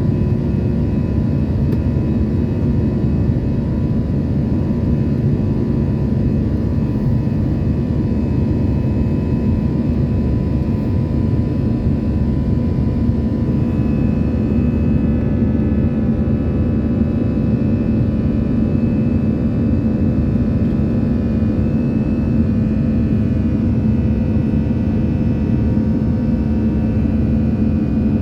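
Airliner cabin noise in the climb: the steady rumble of an Airbus A320-family jet with a continuous hum and fainter whines on top. The hum grows stronger about halfway through. It is the kind of abnormal cabin noise the passenger noticed after takeoff.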